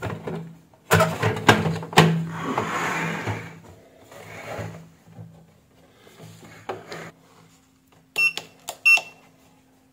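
Hard plastic knocks and scraping as the top housing of a digital weighing scale is pushed back into place, then, near the end, two short high electronic beeps from the scale's keypad as its buttons are pressed.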